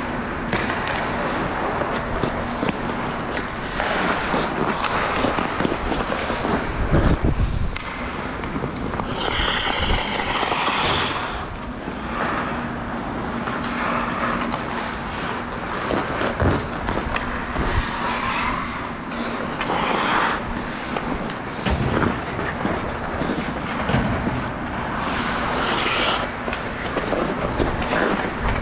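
Sounds of a 3-on-3 game in play: scattered sharp knocks and scrapes over a constant noisy background.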